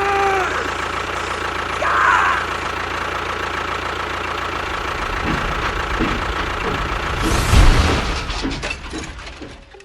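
A small engine running steadily with a fast, even pulsing rumble. It surges louder about seven and a half seconds in, then dies away near the end.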